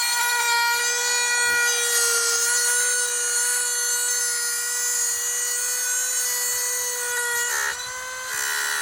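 A machine running at a steady speed, giving a constant high-pitched whine over a hissing rush, with a short dip near the end.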